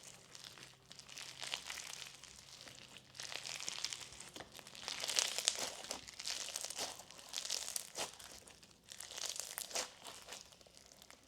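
Clear floam slime with bingsu beads being kneaded and stretched while activator is worked in, the foam beads crackling and popping in several bursts of fine clicks.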